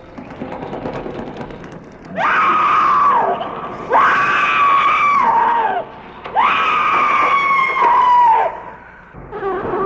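Three long, high-pitched screams, one after another, each sliding down in pitch as it dies away, after about two seconds of quieter noise.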